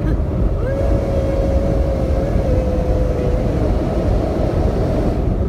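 Jeep driving at road speed, heard from inside the cabin: a steady low rumble of engine, tyres and wind. About a second in, a single steady tone comes over it, holds for nearly three seconds, steps slightly lower in pitch and fades.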